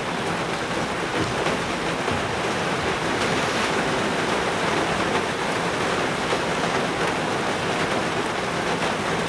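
Steady rushing noise with no distinct events, even throughout.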